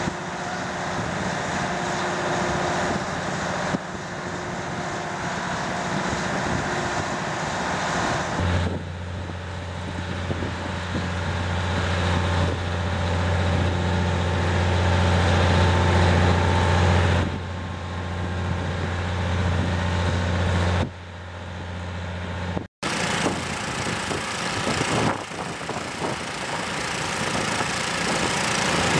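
Engine-driven machinery running steadily outdoors. A deep, even hum comes in about a third of the way through and stops abruptly after about 12 seconds, over a constant background rumble and hiss. The sound changes suddenly several times.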